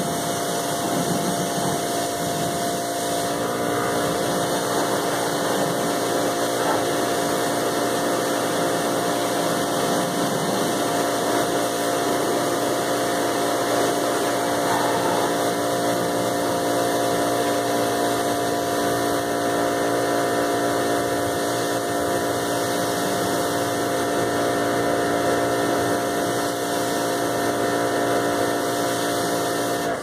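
Stihl RE 109 electric pressure washer running steadily under load: a constant motor hum with the hiss of the high-pressure water jet as the lance sprays a car's wheel.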